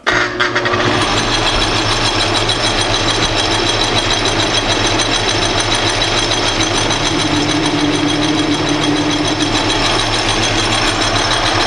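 Atlas metal lathe starting up and running at a high spindle speed while a parting tool cuts into a spinning brass rod, a fast, even rattle over a steady whine. The spindle speed is a little fast for parting off.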